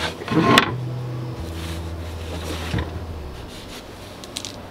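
Gear being shifted and rummaged through inside a sailboat's cockpit locker: a loud clatter about half a second in, a knock near three seconds, and a few sharp clicks near the end, with rubbing in between. A low hum fades out about three seconds in.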